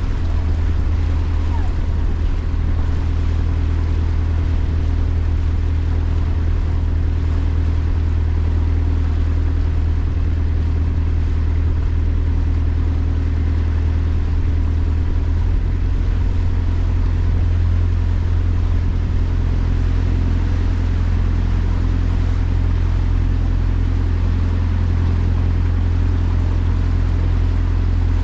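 Boat taxi's engine running at a steady speed, heard on board as a loud, even low drone; its note shifts slightly about halfway through.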